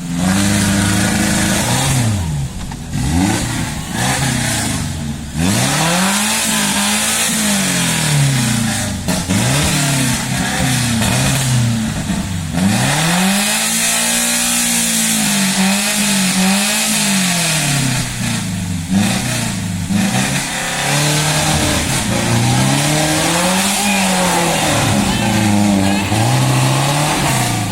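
Toyota 5K four-cylinder engine in a Suzuki Jimny revving hard again and again, its pitch rising and falling every second or two.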